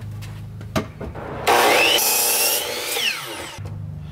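DeWalt miter saw starting up about a second and a half in with a rising whine and crosscutting a 2x8 board. The motor then winds down with a falling whine shortly before the end.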